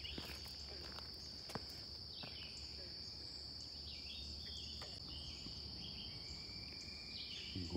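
Steady high-pitched chorus of insects, with short bird calls from about two seconds in and a few faint clicks.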